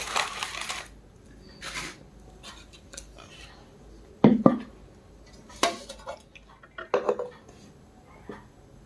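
Dishes and utensils being handled: scattered clinks and short scrapes, with a pair of louder knocks about four seconds in.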